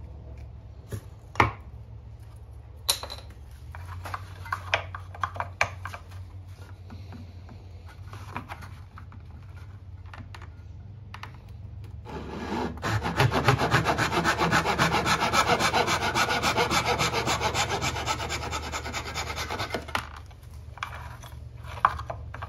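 A few sharp knocks and taps of tools handled on a wooden bench, then a brass-backed backsaw cutting across a wooden board in a run of quick, even back-and-forth strokes for about eight seconds, the loudest part.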